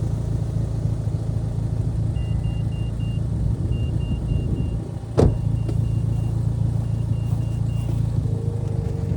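The Evo X's turbocharged four-cylinder engine runs steadily. From about two seconds in, a high electronic chime beeps in repeated sets of four. About five seconds in there is a single sharp bang, just after a brief dip.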